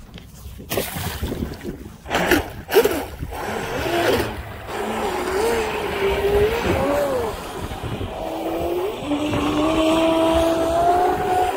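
Radio-controlled mono hull boat's motor running out on the water, after a few sharp knocks in the first seconds as it sets off; the motor's pitch wavers up and down with throttle, then holds steadier and rises a little near the end. With its turn fins set all the way down, the boat drags and can hardly get up on plane.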